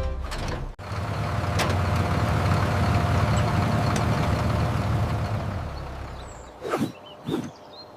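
A farm vehicle's engine running at a steady rumble, fading out about six seconds in, followed by two short, sharp sounds.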